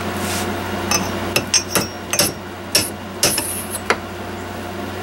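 A quick series of sharp metal clinks and knocks from tools being handled at a metal lathe, between about one and four seconds in, over a steady low hum.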